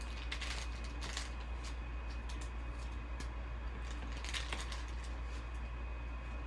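Trading cards and pack wrappers being handled, with scattered soft clicks and rustles about a dozen times, over a steady low hum.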